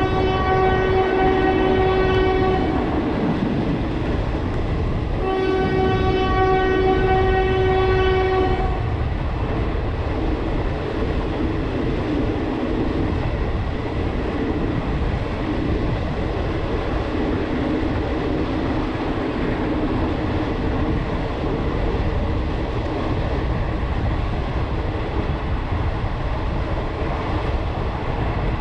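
Train horn sounding two long blasts, each about three seconds, the second starting about five seconds in, over the steady rumble and clatter of the train running on the rails, which carries on after the horn stops.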